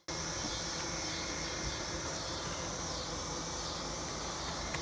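Steady buzzing of honey bees flying around the hive, a constant drone with a steady high hiss above it.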